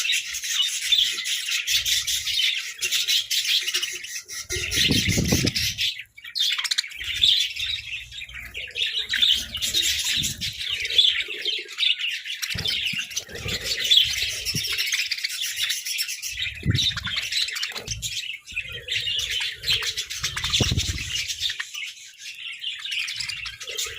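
A group of budgerigars chirping and warbling continuously, many calls overlapping. There are a few short, low thumps along the way.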